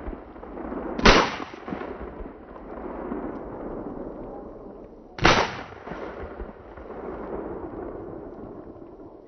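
Two shotgun blasts, about a second in and about four seconds after that, each followed by a long echo that slowly fades.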